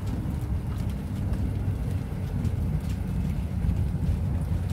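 Low, continuous rumble of thunder, with faint scattered ticks of raindrops.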